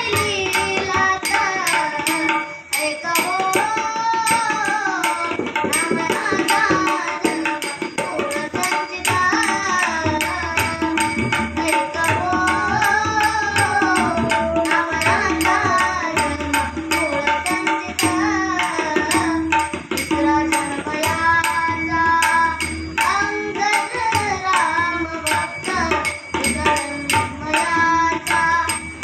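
Indian-style song: a voice singing a melodic line that rises and falls, over drumming in an even rhythm and a held drone note.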